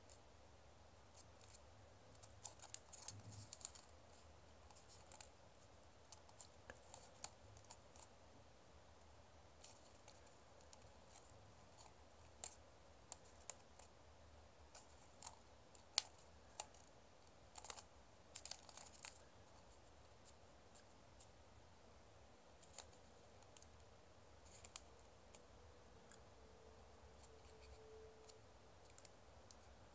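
Faint crinkling and ticking of origami paper being folded and pinched by hand, in scattered short clusters, with one sharper tick about halfway through.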